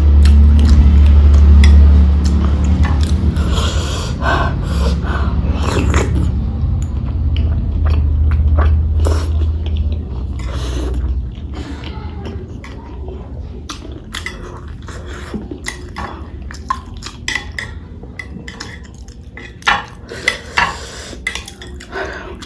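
Close-miked eating of boiled eggs with pickle: chewing and short clinks and scrapes against a plate. A loud low hum runs underneath and stops about halfway through.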